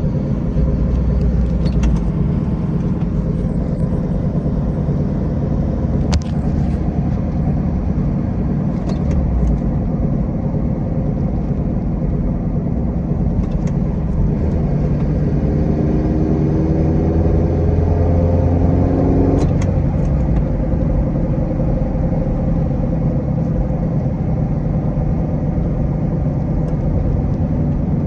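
Mazda Miata running with a bad bearing: a steady low rumbling drone. Partway through, a rising whine builds for several seconds and then cuts off abruptly.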